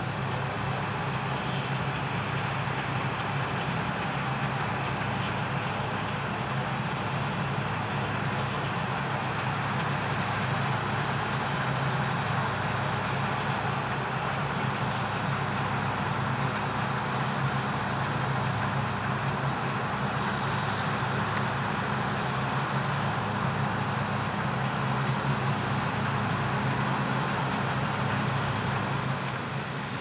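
New Holland CX820 combine harvester working in standing wheat: a steady drone of engine and threshing machinery under load.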